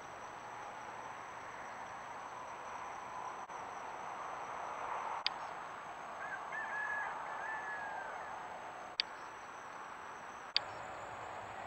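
Steady night-time outdoor ambience through a trail camera's microphone: a hiss of insects, with a faint, short wavering call a little past halfway. Three sharp clicks mark where separate recordings are joined.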